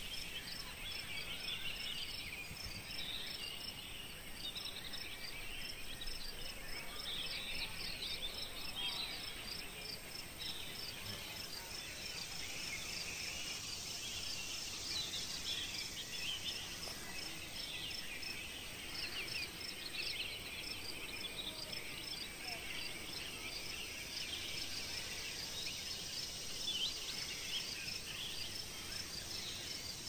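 Summer field ambience: a high insect chirp repeating rapidly and steadily, under many birds singing overlapping trills and phrases.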